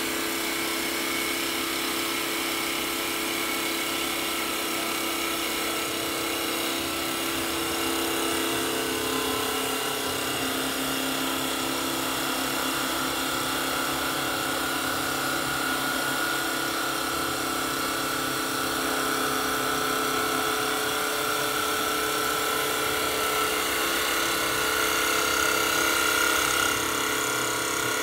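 A Wisdom CNC WS-L1530-4S wood-turning and milling lathe running and turning wooden spindles. Its motors whine steadily over an even cutting noise; the pitch of the whine shifts about eight seconds in, and a higher whine grows louder toward the end.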